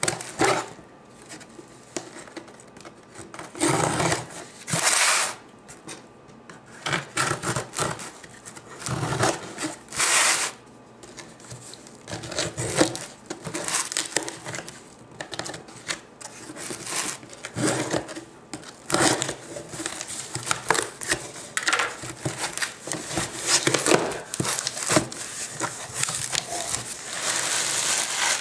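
Packing tape being slit and torn off a cardboard shipping box, with cardboard flaps scraping as they are opened, in a run of irregular rustles and rips with a few louder tears. Near the end a plastic bag crinkles as it is lifted out of the box.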